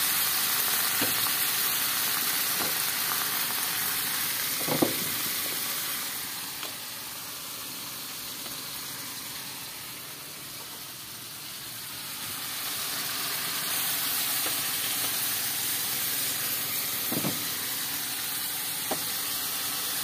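Shark meat with oyster sauce sizzling in hot oil in a wok: a steady frying sizzle that fades for a few seconds in the middle and comes back, with a few short knocks.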